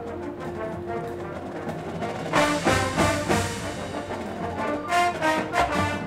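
High school marching band playing with brass and front-ensemble percussion: held brass notes, then loud, accented full-band chords start about two and a half seconds in and come again about five seconds in.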